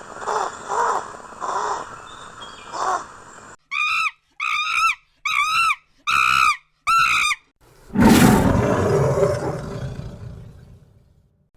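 Animal calls: a run of lower calls, then five short pitched calls in a row, then one loud, rough call about eight seconds in that fades away over some three seconds.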